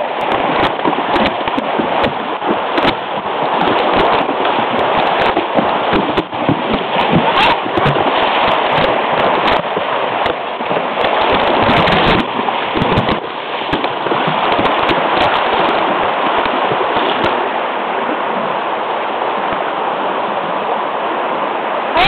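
Rushing water of a shallow, rocky creek as horses wade through it. Frequent splashes and knocks from their steps through the first two-thirds, then a steady rush of water.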